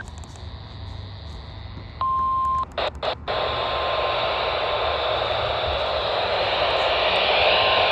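NOAA Weather Radio received over a weather radio during its Required Weekly Test: faint static, then a single steady beep about two seconds in. The signal cuts out briefly three times, and louder static follows.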